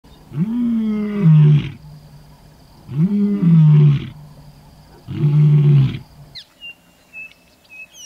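Male lion roaring: three long, loud calls, each rising in pitch and then dropping to a lower held tone, the last one shorter. After the roars a bird gives a few thin whistles.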